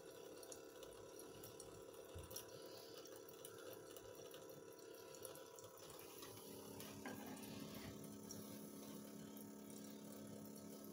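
Faint steady trickle of water running from a hose into a cloth filter bag in a stainless-steel sink, over the low steady hum of a small pump circulating the wash water.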